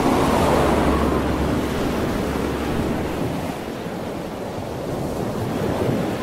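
Ocean surf and wind: a steady rushing noise that swells near the start and eases off a little later on.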